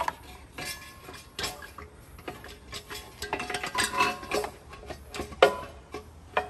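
Irregular metallic clinks and clanks, some ringing briefly, as an exhaust manifold is handled and lowered into place against the engine, with one sharper knock about five and a half seconds in.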